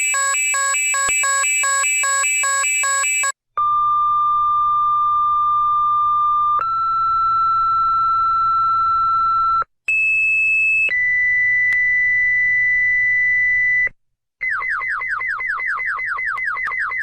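Electronic emergency alert tones, several in a row: a rapidly pulsing chord of several tones, then, after short gaps, steady single tones at different pitches, each held for one to three seconds, and finally a fast series of falling sweeps, about five a second.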